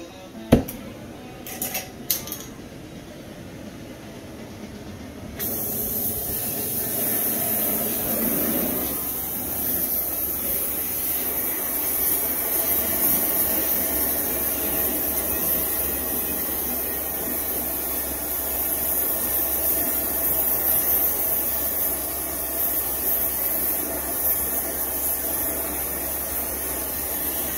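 Oxy-fuel cutting torch hissing steadily as its flame heats the steel skid plate, after a few sharp clicks near the start. The hiss comes on suddenly about five seconds in.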